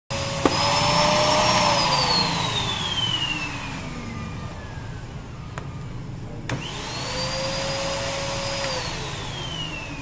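Sanyo canister vacuum cleaner switched on with a click, its motor running with a high whine, then switched off and winding down with a long falling whine. About six and a half seconds in it clicks on again, whines up to speed, and winds down once more near the end. It now powers up because its faulty power switch has been cleaned.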